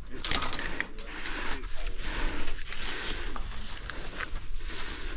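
Irregular scraping and rustling as a climber's hands and shoes shift over the rock and through dry leaves and twigs, with a sharper scrape about a third of a second in.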